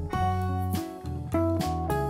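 Background instrumental music with plucked guitar over a steady bass line.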